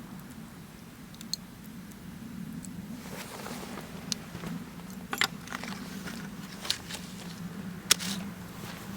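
Wood fire crackling, with sharp pops and snaps that come more often after a few seconds; the loudest snap comes near the end.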